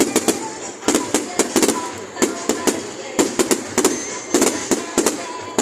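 Fireworks display going off: a rapid, irregular run of sharp bangs and crackles, several a second.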